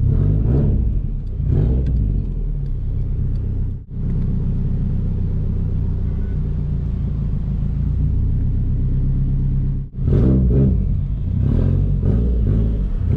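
Straight-piped 2004 Subaru WRX STI's turbocharged 2.5-litre flat-four running loud at low revs at crawling speed, with a few short rises in revs. The sound drops out abruptly twice, about four seconds in and near ten seconds.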